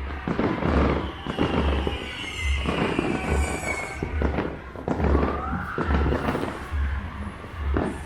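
New Year's firecrackers going off in repeated sharp bangs at irregular intervals, over music with a steady thudding bass beat.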